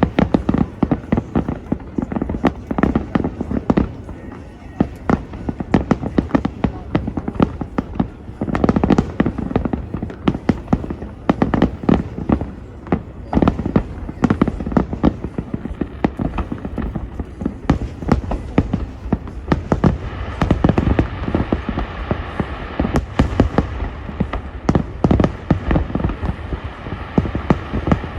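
Aerial fireworks display: a dense, continuous barrage of bangs and crackles, many shell bursts a second, loud throughout.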